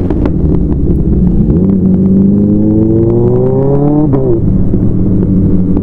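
Motorcycle engine accelerating under load, its pitch rising for a couple of seconds, then dropping sharply about four seconds in as it shifts up a gear, and then running on steadily.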